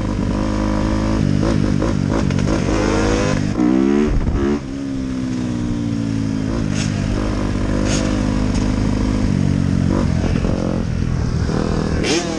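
Dirt bike engine running under way, heard from the rider's seat, its pitch rising and falling with the throttle and gear changes. About four seconds in it revs up sharply, then drops back.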